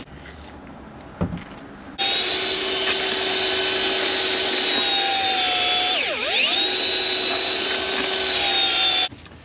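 Electric drill with a paddle mixer stirring sand, cement and lime render, running as a steady whine that starts about two seconds in and stops abruptly near the end. Its pitch dips briefly midway, then comes back up.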